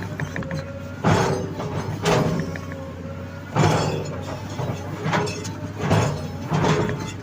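Excavator's diesel engine running steadily under load, with a loud surge about once a second or so as the hydraulics work the bucket through soil.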